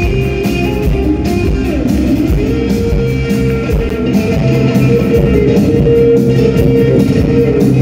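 Live rock band playing, with electric guitars and drums. About two seconds in, one note dips and rises in pitch, then is held as a long sustained note.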